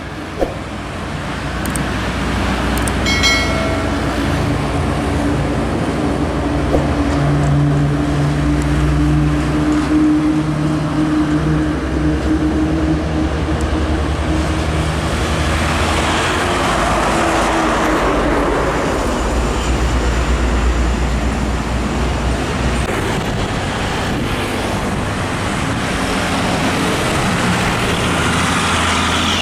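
Heavy road traffic going past: truck diesel engines running with a low drone and tyre noise, one vehicle's engine most prominent for several seconds and another passing with a swell of tyre noise later on. A short high-pitched tone sounds about three seconds in.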